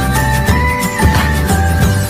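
Intro music with a steady beat, bass and a held synth melody.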